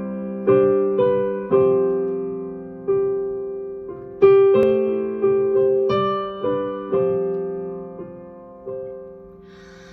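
Solo keyboard instrumental intro: piano-toned chords struck one after another, each ringing and fading, softer and more spaced out near the end.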